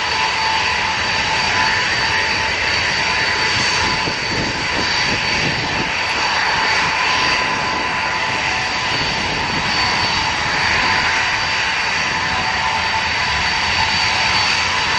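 Ilyushin Il-76's four turbofan engines running at low power as the freighter taxis: a steady rushing whine with high, unchanging tones over it.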